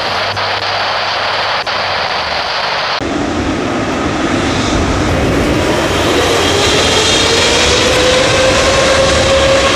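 Jet airliner engines: after a sudden change about three seconds in, a steady rushing noise with a whine that rises in pitch and grows louder.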